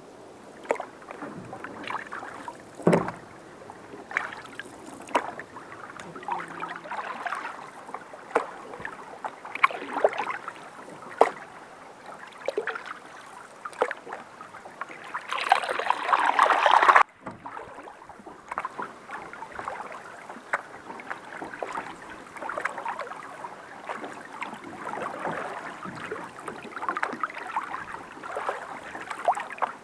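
Canoe paddling: wooden paddles dipping and pulling through the water in irregular strokes, with splashes, drips and water lapping against the canoe hull close by. About fifteen seconds in, a louder rush of water swells for a couple of seconds and cuts off suddenly.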